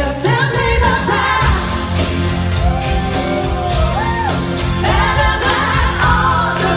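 Live pop-rock song performed by a band, a singer's voice carrying the melody over guitar and bass accompaniment.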